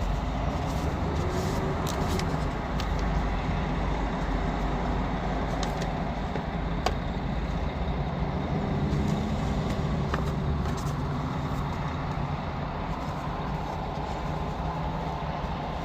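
Steady rumble of road traffic passing by, with one sharp click about seven seconds in.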